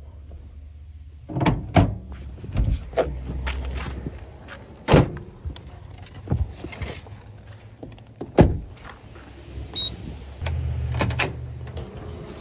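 A series of sharp knocks and thuds, about eight spread out, with rustling in between: gear and bedding being handled and doors shutting inside a truck camper.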